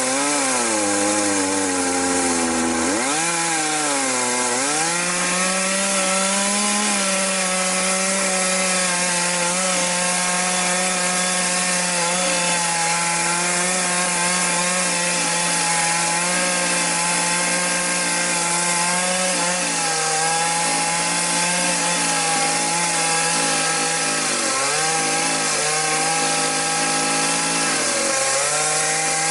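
Chainsaw running under load while ripping a log lengthwise. The engine pitch dips and recovers near the start, again about three seconds in, and twice near the end, and holds steady in between.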